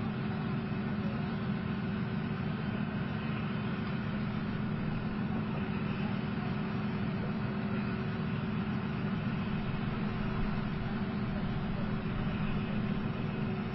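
Leopard 2A4 tank's V12 diesel engine idling, a steady low hum with a constant tone that does not change.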